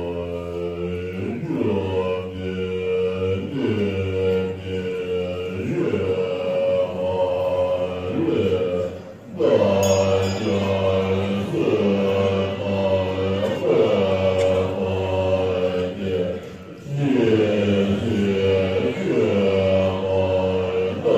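Assembly of Tibetan Buddhist monks chanting a prayer together in unison. The chant runs in repeated rising and falling phrases, with brief pauses for breath about a third and four-fifths of the way through.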